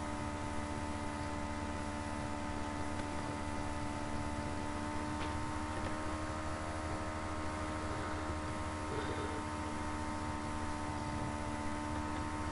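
Steady electrical mains hum with several constant tones, a low drone under higher steady whines.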